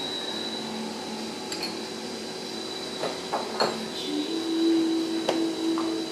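Porcelain tea cup and its lid being handled: a few light clinks and knocks a little past the middle, and another near the end, over a steady hum.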